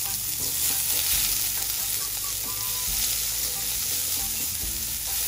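Diced onion sizzling steadily in hot oil in a frying pan, stirred around with tongs as it starts to sauté.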